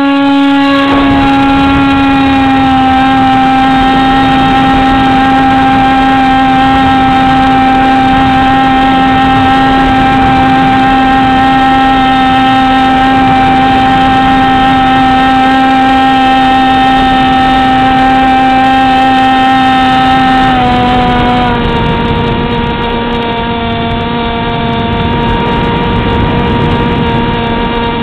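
Beta 1400 RC model plane's motor and propeller running, heard from on board as a loud, steady whine with a rush of air underneath. About three quarters of the way through the pitch steps down slightly and holds there.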